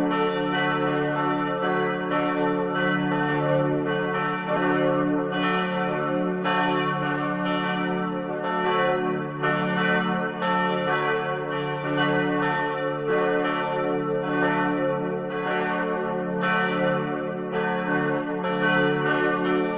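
Church bells ringing continuously, a new stroke coming roughly every half second to second, each ringing on and overlapping the next.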